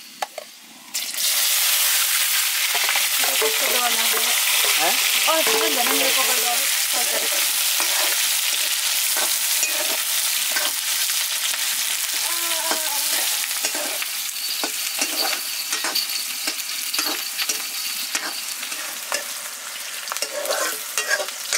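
Sliced onions tipped into hot oil in a wok, bursting into a loud sizzle about a second in. They then fry steadily, slowly easing off, while a spatula stirs and scrapes them against the pan.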